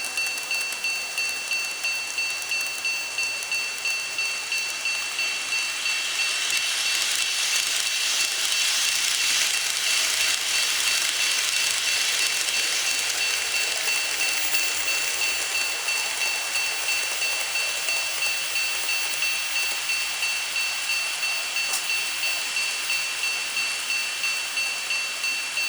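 Model level-crossing warning bell ringing with a high, even, repeating electronic chime. A small N-gauge train rolls past in a light, rattling rush that swells about six seconds in and fades by about fourteen seconds.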